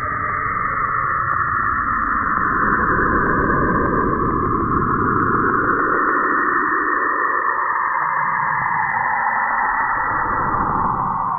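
Sonified space recording, an eerie electronic hiss: a band of whooshing noise that slowly drifts lower in pitch, over a deep rumble that swells and then fades about two-thirds of the way through.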